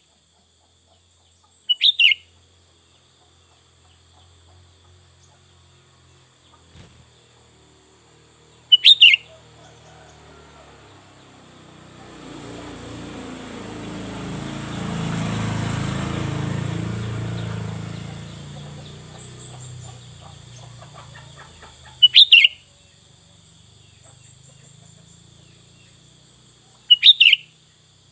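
Sooty-headed bulbul (kutilang) giving four short, loud calls, several seconds apart, over a steady high whine. A low rumble swells and fades in the middle.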